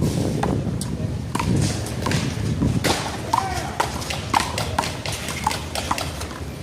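Small rubber handball being slapped by hand and hitting the wall and the court in a one-wall handball rally: about ten sharp smacks at an uneven pace.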